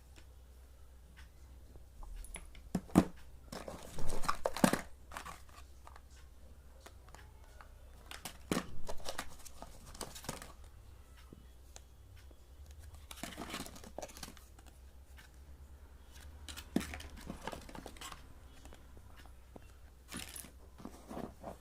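Packaging being torn open and crinkled by hand in several separate bouts, with a few sharper rips among them.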